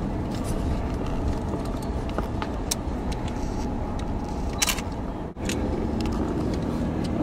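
Car driving along a road, heard from inside the cabin: a steady low rumble of tyres and engine, with a few sharp clicks and rattles. The sound briefly drops out about five seconds in.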